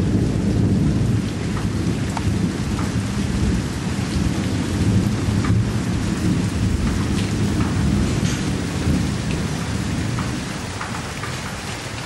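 Rain falling, a dense low rumble with scattered drops ticking on a surface. It eases a little near the end.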